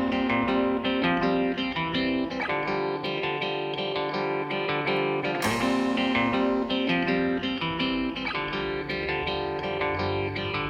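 Music: a lighter melodic passage of quick, ringing pitched notes, without the heavy bass and drums that return just after.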